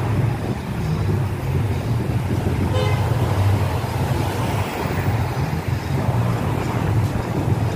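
Steady low rumble of city street traffic with a short horn toot about three seconds in.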